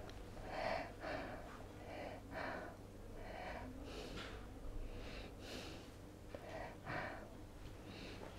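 An elderly man breathing audibly in short, soft, uneven breaths while he gathers himself before answering.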